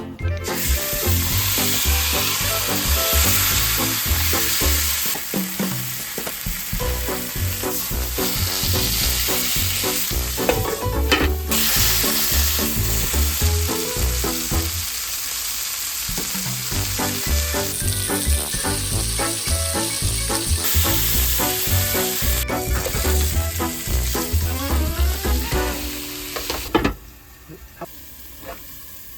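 Beef chuck flap sizzling as it fries in a hot pan, a dense steady sizzle that drops away sharply near the end.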